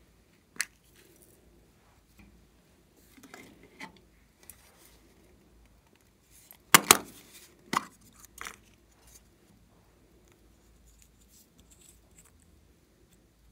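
Small plastic toys and containers handled by hand: scattered sharp plastic clicks and taps with soft rustling between, the loudest two clicks close together about seven seconds in.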